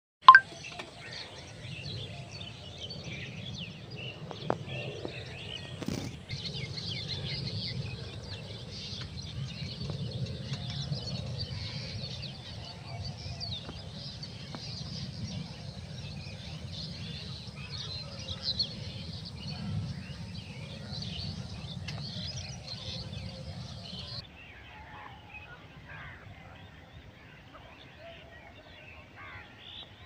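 Many birds chirping and calling over a steady low background rumble, with a sharp knock just after the start and another about six seconds in. About 24 seconds in the sound changes abruptly: the rumble stops and the bird calls go on thinner and quieter.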